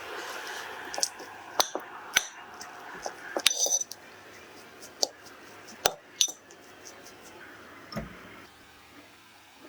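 Cookware and utensils clinking: about ten sharp, ringing clinks at irregular intervals, then a single dull thump about eight seconds in.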